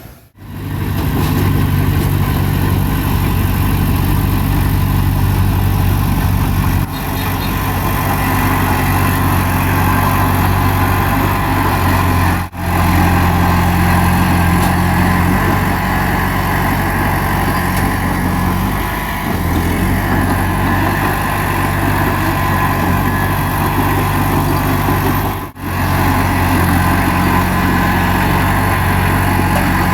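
Heavy earthmoving machine's diesel engine running steadily at an even pitch, cutting out very briefly twice, about a third and two thirds of the way through.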